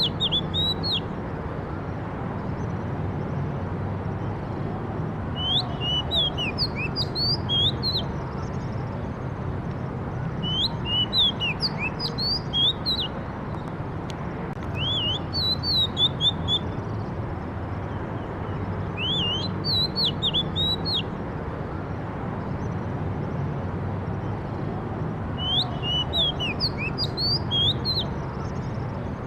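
Songbird singing in repeated phrases of quick, high, sweeping whistled notes. A phrase of two to three seconds comes every few seconds over a steady background of low noise.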